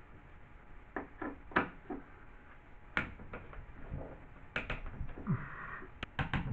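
Scattered light knocks and clicks of hand tools and drywall being worked, with a short scrape just past the middle and a quick run of clicks near the end.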